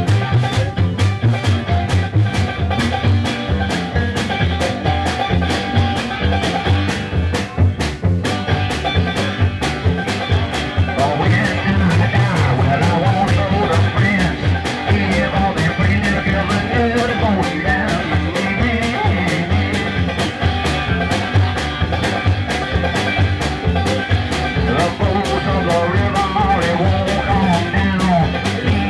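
Live band playing loud, fast music with a steady driving beat: guitar, slapped upright bass, banjo and drum kit.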